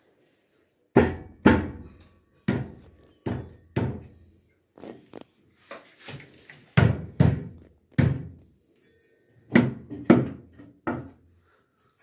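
Irregular hollow knocks and thunks, about a dozen in clusters of two or three, as a washing machine's outer tub is handled and bumped inside its metal cabinet.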